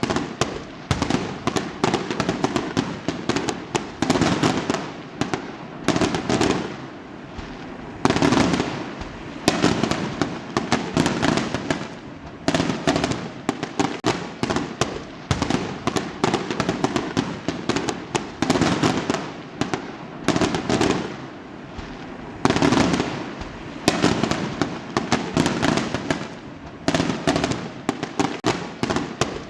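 Fireworks going off in a dense, continuous barrage: repeated sharp bangs, several a second, with crackling between them.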